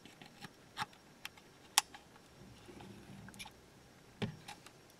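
Several sharp clicks and light scrapes of a plastic bulb holder and long-nose pliers against the plastic housing of a Peugeot 206 multi-function clock display, as the holder is pushed in and twisted a quarter turn to lock. The loudest click comes a little under two seconds in.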